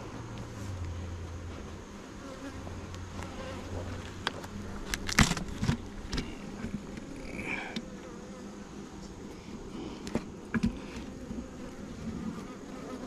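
Honeybees buzzing steadily around an open hive, with a few sharp knocks and clicks scattered through, the loudest about five seconds in.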